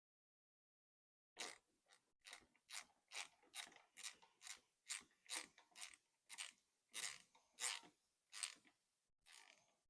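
Faint clicking of a ratchet wrench, about two to three sharp clicks a second with short pauses, as bolts are turned down on the thermostat housing.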